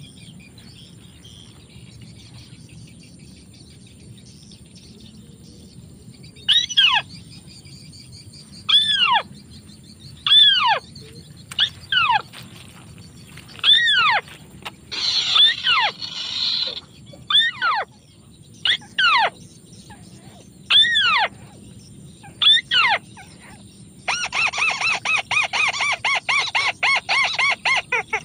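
White-browed crake calling: a string of loud, downward-sliding calls, one every second or two, with a rougher chatter around the middle, then a fast, continuous chattering run over the last few seconds.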